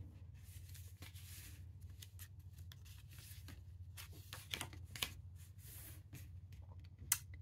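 Faint rustling and light taps of a paperback picture book's cover and pages being opened and turned by hand, with a few sharper ticks about four and a half and five seconds in and another near the end.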